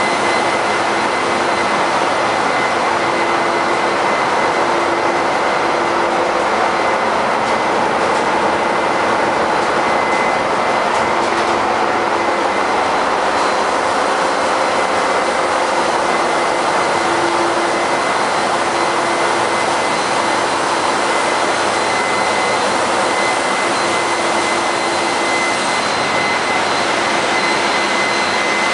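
Ship's engine room machinery running: a loud, unchanging machinery noise with a few high, steady whining tones through it.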